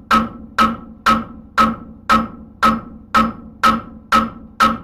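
Blacksmith's hammer striking hot steel on an anvil in a steady rhythm of about two blows a second, each blow ringing briefly, while the end of a horseshoe is tapered into a hoof-pick blade.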